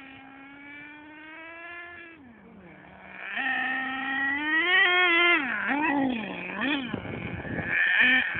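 Nitro engine of an HPI Savage X 4.6 RC monster truck with a chrome exhaust, running at a high-pitched whine. It holds and slowly climbs in pitch for about two seconds, then drops off, and in the second half it revs up and down in several quick swells as the throttle is worked.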